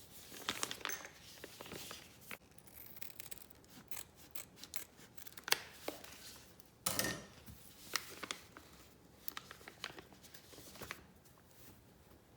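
Small keyboard-kit parts and their packaging being handled: scattered light clicks and rustles, with a louder rustle about seven seconds in.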